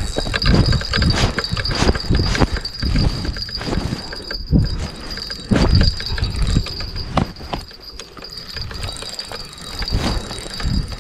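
Clothing rubbing and brushing against a body-worn action camera's microphone in irregular rustles and thumps, over a thin steady high whine.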